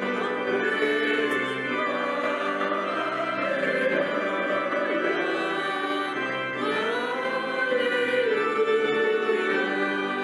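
Soundtrack music with choral singing, voices holding slow, sustained chords that shift gradually.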